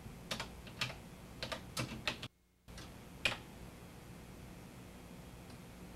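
Keys of a computer terminal keyboard being typed: about seven keystrokes in the first two seconds, the sound cutting out for a moment, then one louder keystroke a little after three seconds. A faint steady hum lies underneath.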